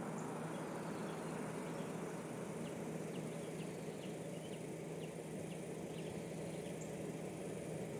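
Outdoor ambience: a steady low rumble with a high, steady insect buzz and a run of short bird chirps in the middle.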